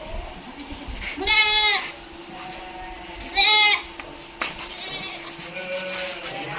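Goats bleating: two loud, wavering bleats about two seconds apart, followed by fainter calls from other goats.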